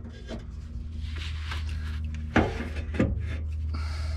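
Scraping and rubbing of the Land Rover Discovery 2's transfer case front output housing being worked free by hand, with two sharp knocks a little past halfway, over a steady low hum.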